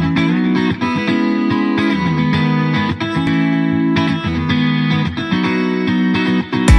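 Background music: a guitar intro playing sustained chords, with drums coming in right at the end.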